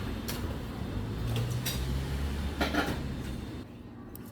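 Dishes and utensils clinking and clattering in a few sharp knocks over a low rumble, which drops away near the end.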